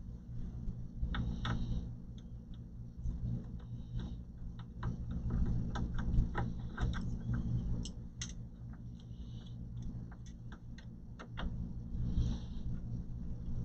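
Scattered small clicks and light taps of hands handling parts inside an opened all-in-one computer, irregular and several a second, over a steady low hum.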